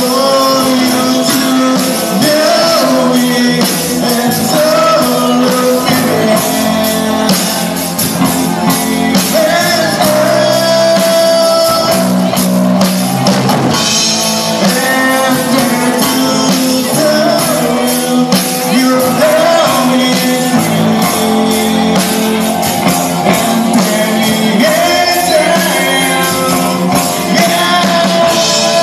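Rock music with a singer over guitar and drums, playing continuously.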